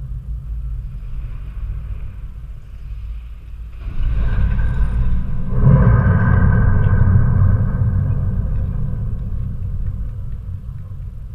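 Deep rumble of a blasted brick factory chimney coming down. It swells about four seconds in, peaks around six seconds and then slowly dies away.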